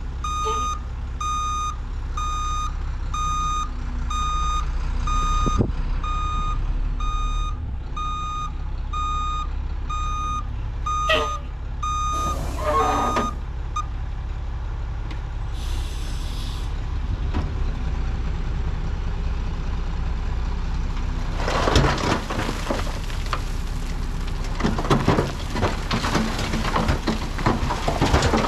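Ford L8000 dump truck's diesel engine running while its reversing alarm beeps about once a second as it backs up. The beeping stops about a third of the way in and is followed by two short air hisses from the brakes. In the last third, the load of fill dirt and rocks slides out of the raised dump bed and crashes onto the ground.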